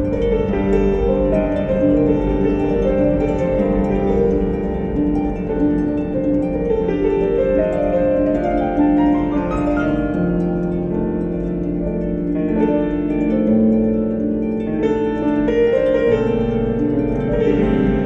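Instrumental background music with plucked-string notes, including a rising run of notes around the middle.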